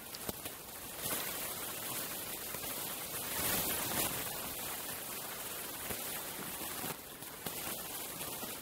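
Steady hiss of background noise with a few faint clicks, and no clear voice or animal call.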